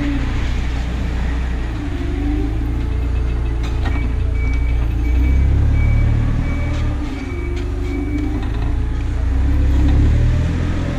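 Freightliner Cascadia semi truck engine running, its low note falling and rising as the engine speed changes. A string of short high beeps, a little under two a second, sounds for about four seconds in the middle.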